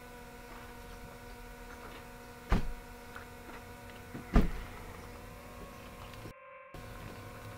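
A steady hum made of several held tones, broken by two sharp knocks about two seconds apart. The sound cuts out for a moment near the end.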